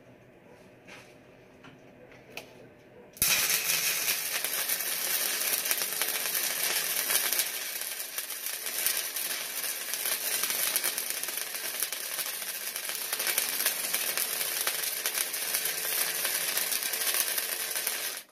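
Electric arc welder crackling steadily as a weld bead is run on steel. It starts suddenly about three seconds in, after a few faint clicks, and stops sharply just before the end.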